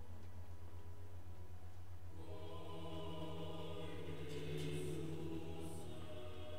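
A church choir begins singing a communion hymn about two seconds in, with sustained notes. A steady low electrical hum runs underneath.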